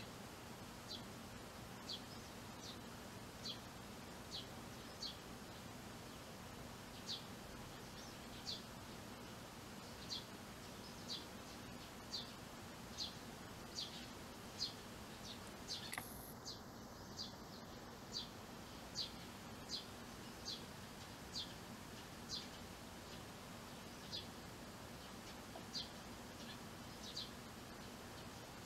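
Eurasian tree sparrow chirping: a steady series of short, high chirps, about one a second, over a faint steady hum. A single sharp click about halfway through.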